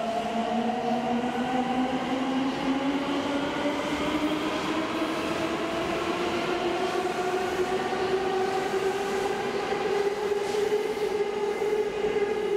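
JR West 221 series electric train accelerating away from a station, its traction motors whining with a pitch that rises steadily as it gathers speed, over the rumble of the wheels.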